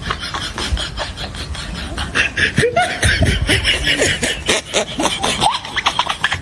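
Laughter in quick, repeated bursts, snickering and chuckling.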